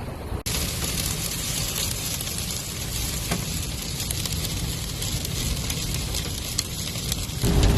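Dust storm blowing: a steady, even hiss of wind-driven dust and sand with a low rumble underneath, starting abruptly about half a second in. Just before the end it gives way to a louder vehicle engine running.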